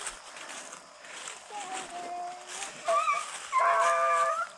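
A rabbit dog baying as it runs a rabbit's trail: one long drawn-out call in the middle, then a louder held bay near the end.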